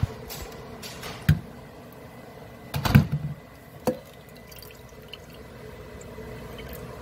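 Thick blended chili puree pouring and dripping through a metal flour sifter into a glass bowl, with a few sharp knocks of the jar and sifter, the loudest about three seconds in.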